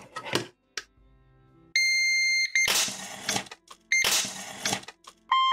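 CyberPower 1500VA UPS sounding a loud beep at power-on, followed by two bursts of crackling hiss as its newly fitted replacement MOSFETs blow out again with sparks. A few sharp clicks come at the start.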